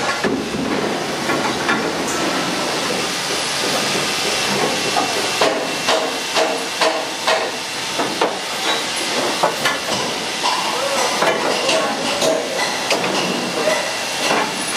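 Steady hiss of site noise with scattered short metallic knocks and clinks from aluminium formwork props and panels being handled.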